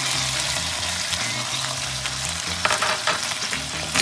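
Chunks of sponge luffa sizzling in a hot pan with oyster sauce, stirred with a wooden spatula. A few sharper scrapes and knocks of the spatula against the pan come in the last second or so as the pieces are tossed.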